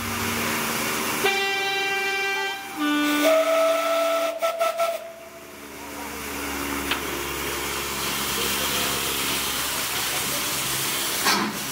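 A run of held, horn-like tones in the first few seconds, then a steady hiss of steam escaping from a standing steam tank engine, No. 85. A short knock near the end.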